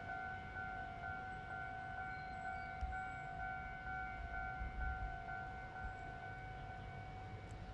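Railway level-crossing warning alarm sounding continuously, a steady electronic tone, with a few short low rumbles about three and five seconds in.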